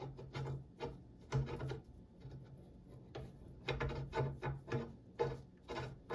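Olympic barbell parts being handled and turned: irregular clicks, knocks and rubbing of metal on metal, over a low steady hum.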